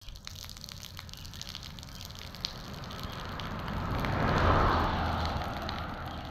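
Outdoor ambience: a steady rushing hiss over a low hum that swells to its loudest about halfway through and fades again, with a few faint clicks.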